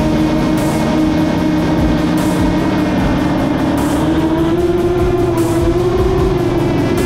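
Background rock music with a steady beat, over a steady engine-like drone that rises slightly in pitch midway.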